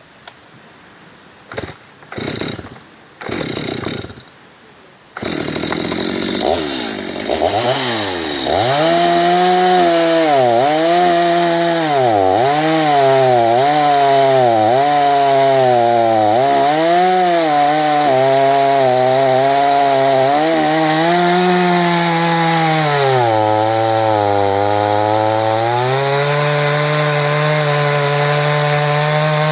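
Stihl MS 250 two-stroke chainsaw: a few short bursts as it is started, then running at high revs while cutting hornbeam. The engine pitch dips and recovers over and over as the chain loads in the cut, sits lower for a few seconds, then climbs again near the end.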